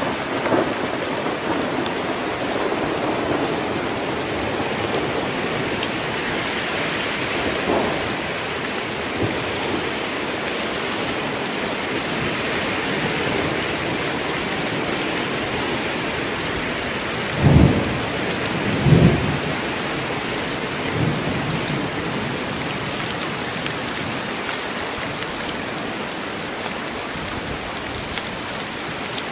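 Steady heavy rain falling in a forest, with a few short low rumbles of thunder, the loudest two close together a little past halfway.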